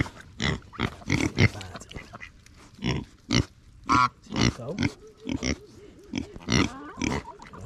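Pigs grunting in short, repeated bursts, with one brief higher-pitched call about four seconds in.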